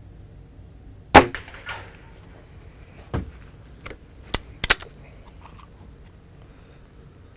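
Walther LGU .22 spring-piston air rifle firing once about a second in: a single sharp crack with a short ringing tail. Several quick metallic clicks follow as the rifle is handled and its underlever is worked to cock and reload it.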